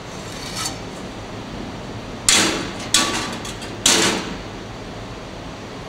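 Three short, harsh scrapes about half a second to a second apart: a strike-off bar drawn across the top of a freshly rammed sand-casting flask, levelling off the excess molding sand.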